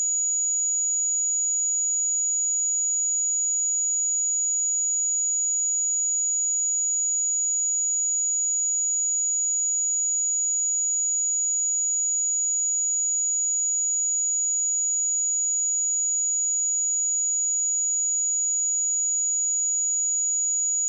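A pure 6833 Hz sine-wave test tone, a single steady high-pitched whistle held at a constant level, for checking speakers or headphones.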